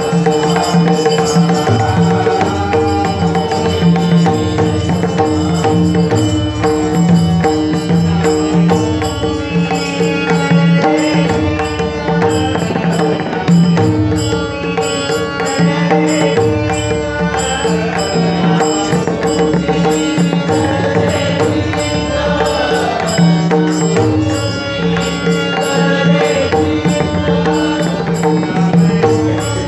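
Marathi abhang devotional music: pakhawaj barrel drum playing a steady rhythm under a held drone and melody.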